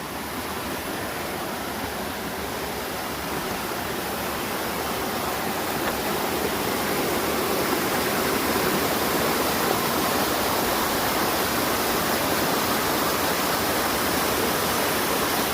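Small mountain-creek waterfall splashing and rushing, a steady rush that swells a little partway through.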